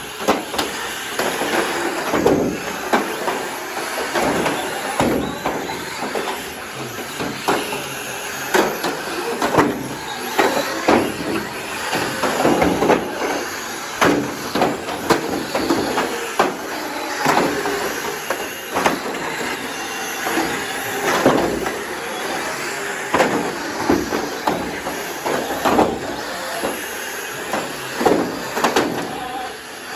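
Radio-controlled cars driving and crashing in a derby: a steady whir of motors and scrabbling wheels, broken by frequent short knocks as the cars collide.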